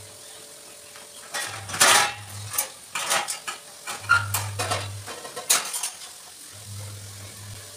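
Steel kitchen utensils clinking and clattering: a spoon and stainless-steel dishes knocked together, with a run of sharp clinks through the middle seconds. A low hum starts and stops several times underneath.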